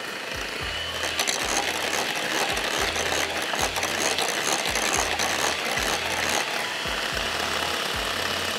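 Electric hand mixer running steadily, beating a cheesecake filling of cream cheese, curd cheese, egg yolks, sugar and gelatin.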